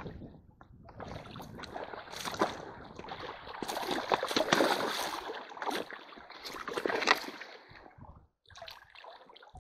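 Shallow stream water splashing and sloshing as a hand scoop net is pushed through it by a wading fisher. The water is louder in the middle, with a few sharper splashes.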